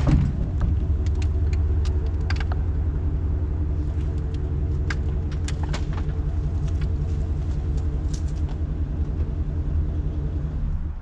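An engine idling with a steady low rumble and scattered knocks over it, shut off abruptly near the end.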